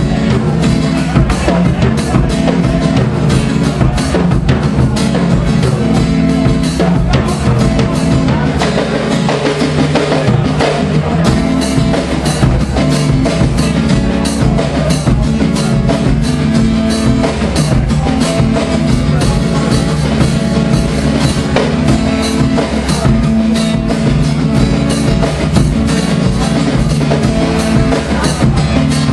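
Live acoustic guitar and drum kit playing an instrumental passage together, the guitar's chords over a steady drum beat of bass drum, snare and cymbals.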